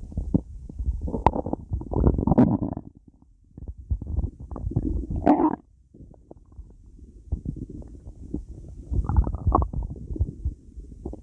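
Stomach growling: irregular low gurgles and rumbles coming in bouts, with short lulls about three and six seconds in.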